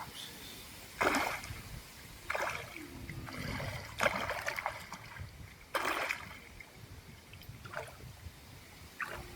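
Water splashing in about six short, separate splashes a second or two apart, over a low steady rumble.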